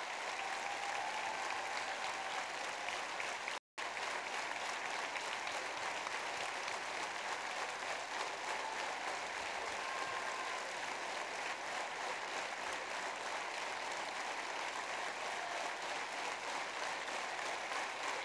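Large audience applauding steadily. The sound cuts out completely for a split second about four seconds in.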